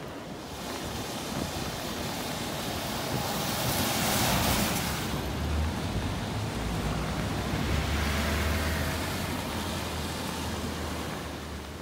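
Traffic on a rain-wet road: a steady tyre hiss that swells as a vehicle passes about four seconds in, then eases, with a low rumble underneath through the second half.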